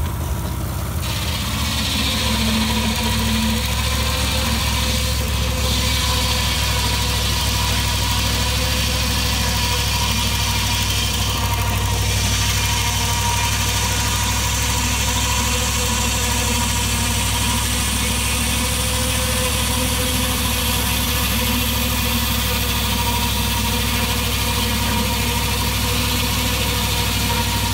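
Engine of a sled-mounted circular ice saw running steadily as its blade cuts through pond ice, with a steady hiss from the cut that starts about a second in.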